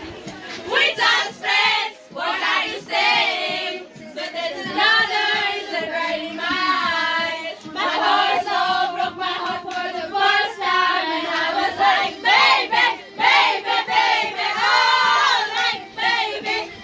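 A group of teenage girls singing a song together in chorus, their voices overlapping and sustained, with a few handclaps.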